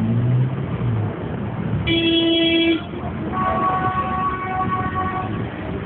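Car horns honking over street traffic noise: one horn blast just under a second long about two seconds in, then a second horn of a different pitch held for about two seconds.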